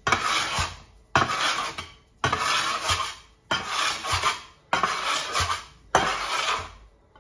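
Metal bench scraper scraping across the countertop as pizza dough is walked into a tight ball: six strokes a little over a second apart, each starting with a sharp click of the blade edge and trailing off into a rasp.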